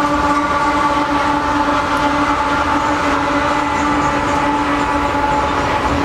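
Freight train passing close by: the trailing diesel locomotive goes past with a steady engine drone and a few held tones. Then the crude oil tank cars roll by, their wheels rumbling on the rails.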